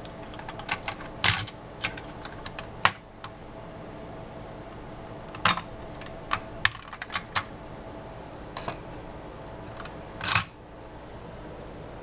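Hard plastic clicking and tapping as the protective cover is unclipped from a motherboard's LGA1155 CPU socket and set down: about ten sharp, irregular clicks, the loudest about ten seconds in.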